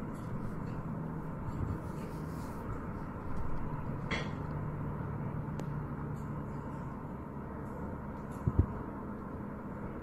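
Low, steady droning hum over an even outdoor rumble: the 'strange sound' that residents heard outside and took for a mysterious sky noise. It fades about seven seconds in, with a brief higher rasp midway and two sharp knocks near the end.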